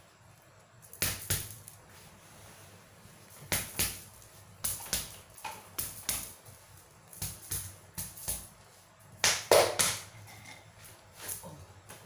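Open hand slapping a man's back through his shirt: short clusters of two or three sharp smacks, coming irregularly every second or two, loudest about nine and a half seconds in.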